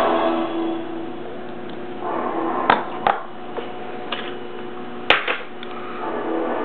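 Four sharp knocks, two close pairs about two seconds apart, over a steady hum.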